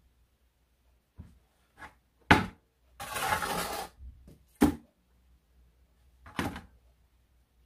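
Steel bricklaying trowel knocking and scraping on bricks and wet mortar: a handful of sharp taps, the loudest about two seconds in, and a scrape of about a second just after three seconds in.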